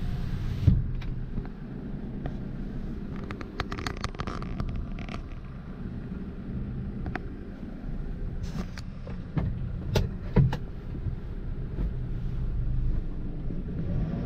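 A diesel truck engine idling steadily, heard from inside the cab. A few sharp clicks and knocks break in, the loudest just after the start and a pair about ten seconds in.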